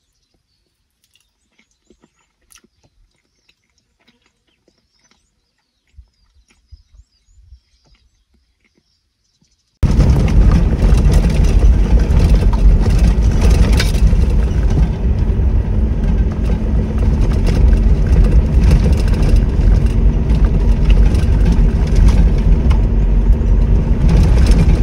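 Loud rumble of a Toyota Hilux driving on a rough dirt track, heard from inside the cab: engine and road noise with bumps and rattles through it. It starts suddenly about ten seconds in, after a stretch of faint clicks.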